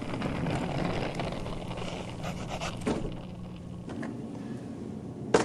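Wheels of a black Pelican rolling hard case rattling over the floor as it is pulled along, with a knock about three seconds in as it is handled. A sharp, loud knock near the end is the loudest sound.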